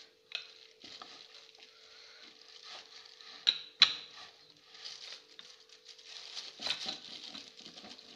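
Wooden rolling pin pressed and rolled over sticky chikki mixture between sheets of butter paper: soft paper rustling and crinkling, with two sharp knocks a little past three seconds in. A faint steady hum runs underneath.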